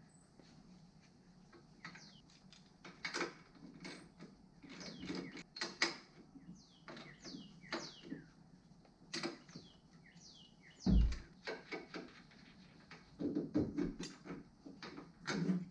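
Metal hand tools and sockets clinking and clattering in irregular bursts while being handled and sorted, with one heavy thud about eleven seconds in.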